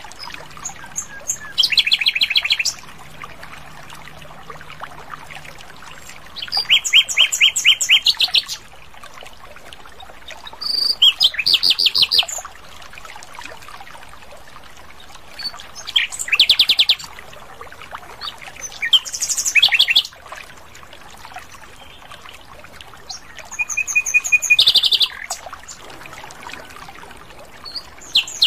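Common nightingale singing: about six short phrases, each a second or two of fast repeated notes and trills, separated by pauses of a few seconds.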